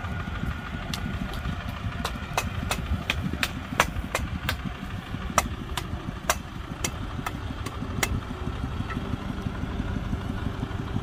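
Kubota tractor's diesel engine running steadily at low revs, with a run of sharp metallic clicks, roughly two a second, from about a second in until about eight seconds in.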